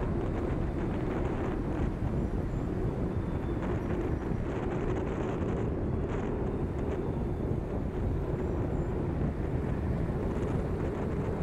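Steady road and wind noise from a car driving at highway speed, heard from a camera mounted outside on the car's rear window: tyre rumble on concrete pavement with wind rushing over the microphone.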